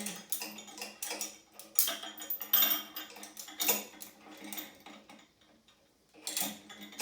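Metal weightlifting plates and lifting hardware clinking and knocking together as a 2.5-pound plate is added to the load: a run of irregular clinks for about five seconds, a short lull, then another brief clatter near the end.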